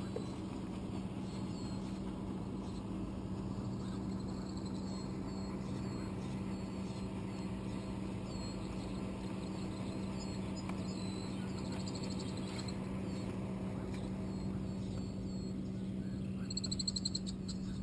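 Steady low electric hum of a boat's trolling motor, with short high animal calls repeating throughout and a fast high trill near the end.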